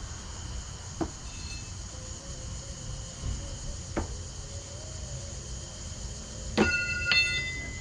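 Thrown blades hitting wooden target boards: sharp single thunks about a second in and at four seconds. Near the end a louder hit rings out metallically, and a second ringing clang follows half a second later. Crickets chirp steadily throughout.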